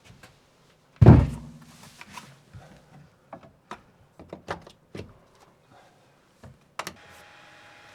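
A loud, heavy thump about a second in, followed by a scatter of short clicks and knocks like things being handled. A faint steady hum starts near the end.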